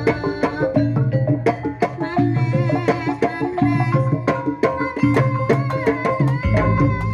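Kuda kepang ensemble music: hand drums beating a quick rhythm under held melodic notes, with a deep bass coming back in near the end.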